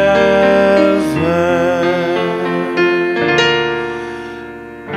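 A singer holding a long note over piano chords; the voice stops about three seconds in and a last piano chord rings and slowly fades.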